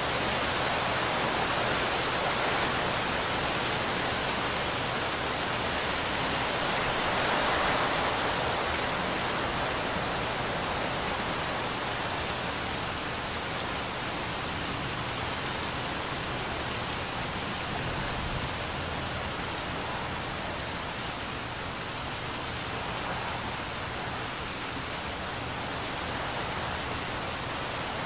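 Steady rain falling on a swimming pool's water and its concrete deck: an even hiss with no breaks, a little stronger about a quarter of the way in.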